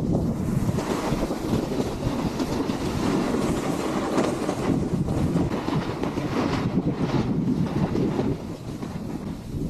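Snowboard riding over chopped-up packed snow: a steady rough scraping rumble with rattly chatter from the board, easing off briefly near the end.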